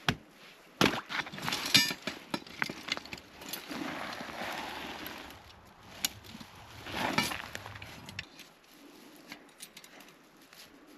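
Thin creek ice being broken open by hand and foot: a series of sharp cracks and knocks, the loudest in the first two seconds, with rougher crunching and scraping stretches in between.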